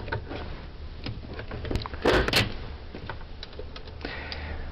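Impact punch-down tool firing on a 66 punchdown block, seating and trimming the brown pair's wires in the clips: two sharp snaps close together about two seconds in, among lighter clicks of wires pressed into the block.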